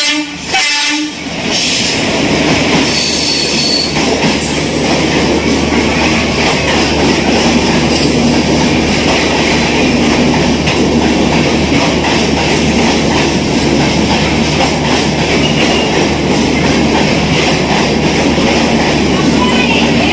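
Indian Railways train running past, a loud steady rumble and clatter of wheels on the rails. There is a short horn note in the first second.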